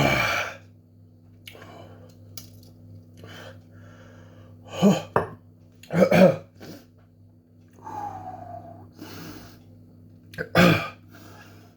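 A man coughing and clearing his throat in several short, loud bursts, with a fainter falling groan between them, reacting to the burn of a very hot extract-based chilli sauce he has just swallowed.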